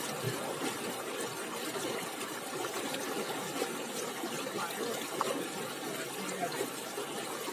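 Water splashing, trickling and dripping as a cast net is swished in shallow water and lifted out streaming.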